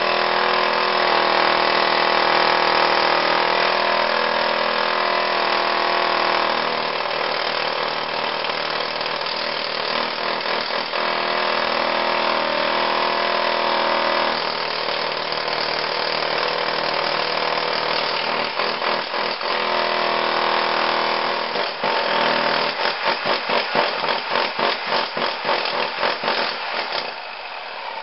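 Jackhammer with a chisel bit running steadily as it breaks into a concrete floor slab. Past twenty seconds it goes in short stop-start bursts, then stops near the end.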